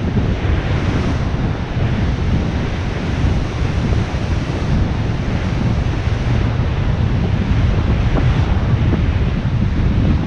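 Heavy wind buffeting on the microphone from cycling at about 12 km/h, over the steady wash of surf breaking on the shore.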